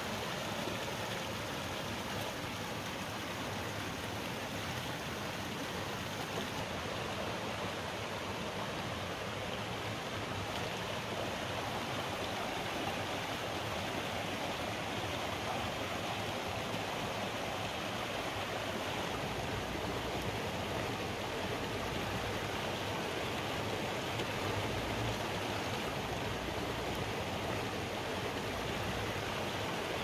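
A shallow rocky stream rushing steadily over stones.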